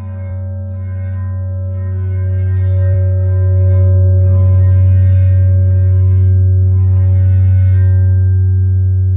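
A sustained, steady low droning tone with ringing overtones above it, swelling louder over the first few seconds and then holding.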